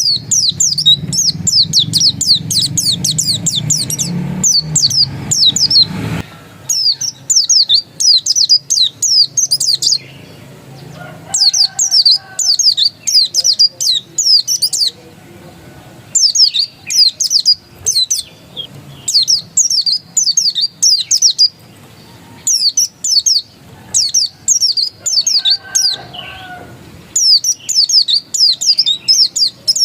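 A pleci dakun white-eye singing in its insistent 'ngotot' style: fast, high twittering phrases of a few seconds each, broken by short pauses. A low hum sits under the first six seconds, then stops.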